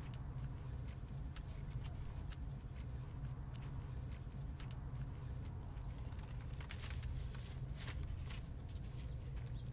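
Close handling sounds of fingers twisting animal hair into yucca-fibre cordage: soft, irregular rustling and small crackles of fibre. A steady low rumble runs underneath.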